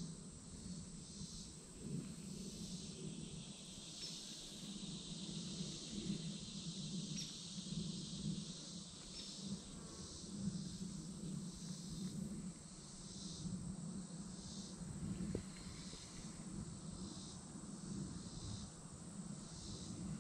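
Insects singing in the surrounding woods, a high chorus that pulses about once a second, over a low steady rumble.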